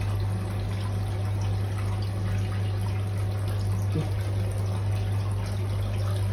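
Turtle tank's filter running: steady water trickling and splashing over a constant low pump hum. A small soft splash comes about four seconds in as a small turtle is set back into the water.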